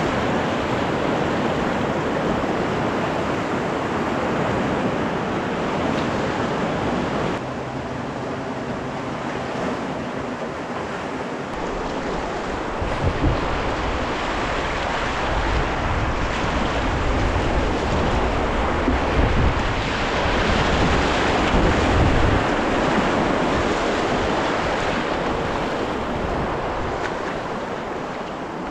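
Whitewater rapids rushing and splashing steadily, heard close to the water. The sound shifts abruptly twice in the first half, and in the middle stretch wind buffets the microphone with a low rumble.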